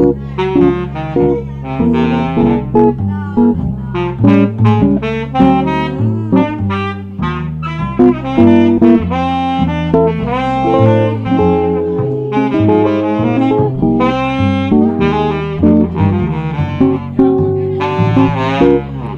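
Saxophone playing an improvised-sounding jazz melody, moving freely from note to note, with a bass line stepping beat by beat underneath: an instrumental solo in a swing jazz tune.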